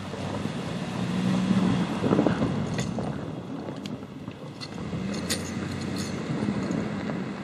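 2004 Ford Explorer's engine running steadily as the SUV drives its front-mounted snow plow blade through snow, with a rushing swell early on and a few sharp clicks.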